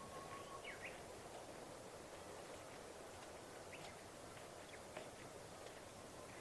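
Faint outdoor ambience with a steady hiss and a few short, high bird chirps scattered through, about four in all.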